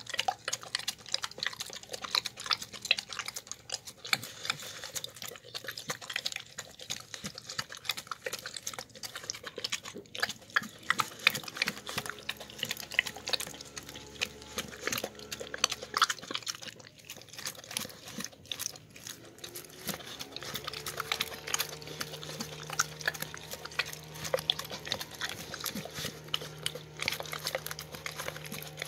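A dog eating a wet meal of chicken, pasta and beans from a plastic bowl: rapid wet smacking, chewing and licking. A faint steady hum comes in about two-thirds of the way through.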